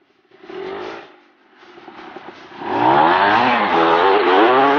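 Kawasaki KMX 125's two-stroke single-cylinder engine: a short burst about half a second in, then from about two and a half seconds in loud revving that rises and falls in pitch as the bike rides close by.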